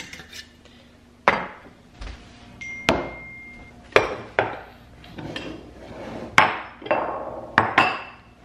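Kitchenware knocking on a countertop: an enamelled pot, a ladle and ceramic bowls being set down and handled, about nine sharp knocks, one about three seconds in leaving a brief ringing tone.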